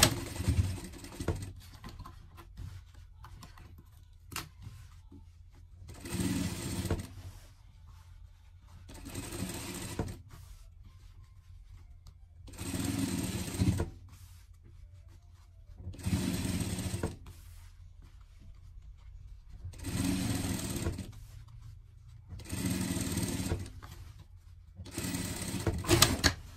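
Industrial straight-stitch sewing machine stitching in about eight short runs of a second or so each, stopping and starting again every few seconds.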